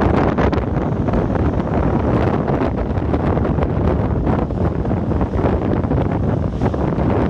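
Wind buffeting the microphone in a steady roar, with surf washing in on the shore.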